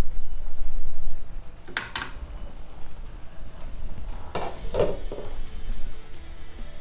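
Chicken pieces cooking in a pan in the water they have released, sizzling, with a spoon stirring and clinking against the pan a few times, about two seconds in and again around four and a half seconds in.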